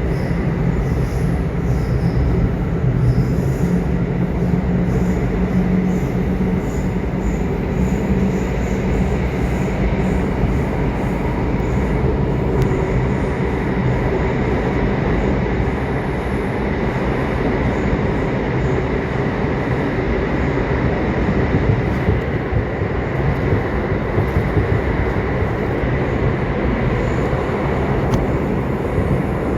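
Subway train running: a steady rumble of wheels on rails and running gear, with a faint steady whine above it.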